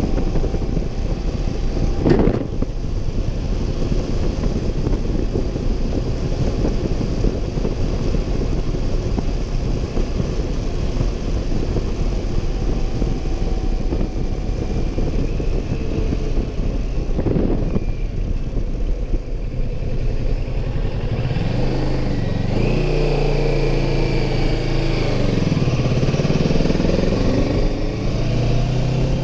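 Motorcycle riding at speed, with steady wind rush over the microphone and two brief whooshes. Near the end the engine's note comes through clearly, dropping in pitch and then climbing again as the bike slows and picks up speed.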